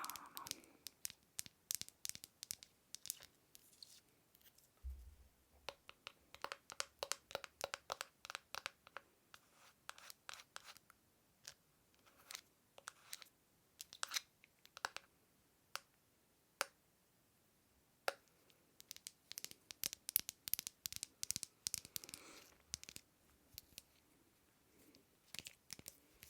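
Light tapping and scratching on small household objects close to the microphone: many short, sharp clicks and scratches in quick irregular runs, with a few lone louder taps between them.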